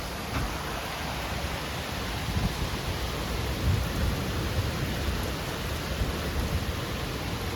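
Heavy rain pouring steadily, with a low, uneven rumble that swells a couple of times.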